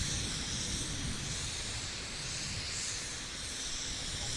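Steady hiss of gas venting from a Firefly Alpha rocket on the launch pad during safing after a countdown abort, over a low, uneven rumble.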